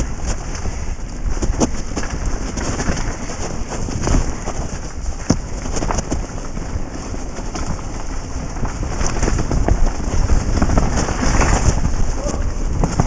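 Wind rushing over a helmet camera's microphone during a fast mountain-bike descent, with the bike rattling and knocking over roots and rocks on a rough dirt trail.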